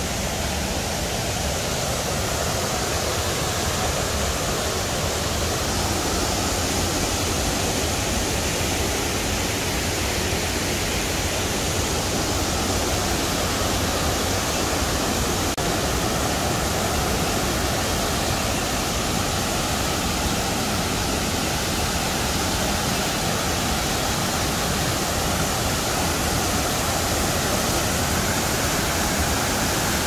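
Waterfall rushing steadily, an even unbroken noise of falling water.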